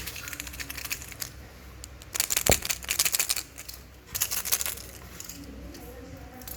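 Small hard pieces, plastic toy parts or candies, clicking and rattling as they are handled, in two quick flurries about two seconds in and again about four seconds in.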